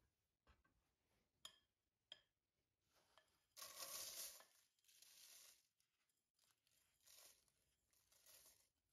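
Buttered biscuit crumbs tipped from a glass bowl into a paper-lined springform pan with a spatula. A couple of light clinks of spatula on glass come first, then faint rustling as the crumbs slide out and land on the baking paper, loudest about four seconds in.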